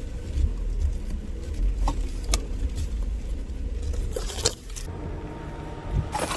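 Car engine running, heard as a steady low rumble, with a few sharp clicks about two seconds in and again near four and a half seconds.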